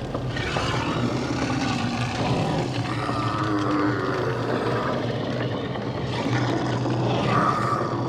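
Dense horror sound-design ambience: a steady engine-like drone over a low hum, with a few brief higher tones breaking through in the middle and near the end.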